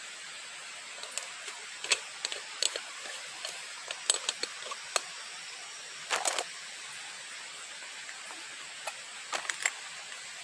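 A steady hiss with scattered sharp clicks and snaps, a small cluster of them about six seconds in.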